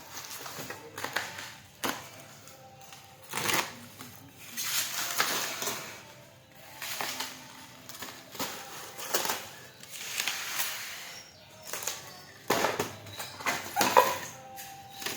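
Packaging being handled and rustled: irregular crinkling bursts of plastic and cardboard, with sharp knocks and clicks throughout.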